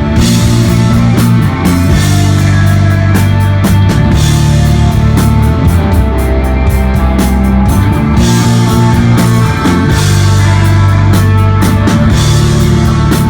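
Desert rock band playing live and loud: sustained heavy bass and guitar notes over a drum kit, with a cymbal crash about every four seconds.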